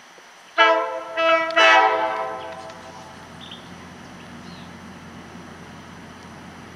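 Railroad locomotive horn sounding three blasts about a second in: two short ones, the second weaker, then a longer one that fades out. A low steady rumble of the train running carries on after the horn.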